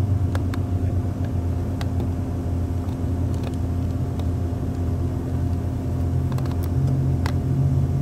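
Nitrogen flowing from the cylinder through the regulator and hoses into the air-conditioning system to pressure-test a fresh braze joint: a steady low hum that grows a little louder near the end.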